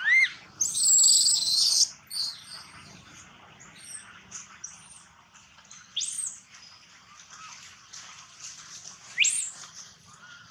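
Baby macaque crying. A short rising squeal comes first, then a loud, harsh, high-pitched scream lasting over a second, followed by single rising high squeals about six and nine seconds in.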